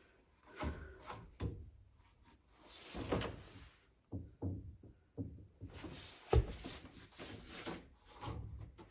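Hands working on a washing machine: irregular knocks, rubbing and scraping, with one louder thud about six and a half seconds in.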